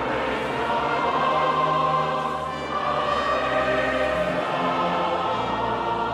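A choir singing a hymn with sustained instrumental accompaniment, held chords over steady bass notes.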